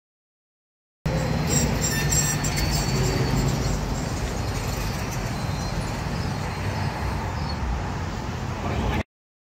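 Silent for about a second, then steady city street noise with traffic, which cuts off suddenly near the end.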